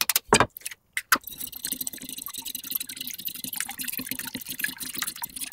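An egg cracked open with a few sharp taps of a knife blade, then, from about a second in, eggs beaten briskly with a fork in a bowl: a fast, steady clatter of fork on bowl with sloshing egg.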